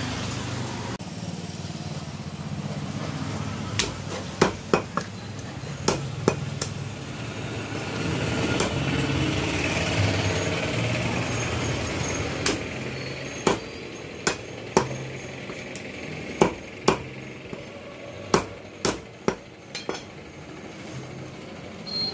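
Heavy butcher's cleaver chopping duck meat and bone on a round wooden block: sharp chops at uneven intervals, often in quick runs of two to four. The chops sit over a steady background rumble that swells in the middle.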